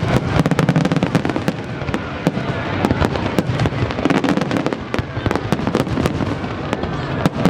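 Aerial fireworks going off: dense, rapid crackling pops, many a second, over a continuous low rumble of bursts.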